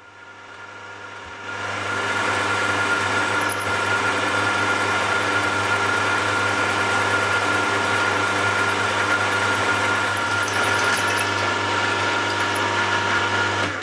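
Drilling machine's motor spinning up, then running steadily with a high whine as a twist drill bores a 6 mm hole through a metal drawbar part held in a vise.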